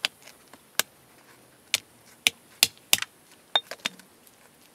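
Hammer tapping a hickory nut on a flat stone to crack its shell: about ten sharp knocks, unevenly spaced, some in quick pairs or runs after the middle.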